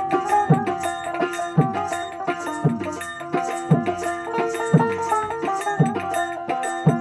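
Bengali Baul folk music: a hand drum struck about once a second, its strokes bending in pitch, with lighter strokes in between, under a plucked string melody.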